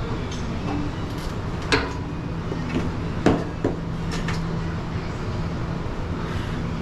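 Plate-loaded leg press sled and weight plates knocking and clanking during slow reps, a few sharp knocks with the loudest about three seconds in, over a steady low hum.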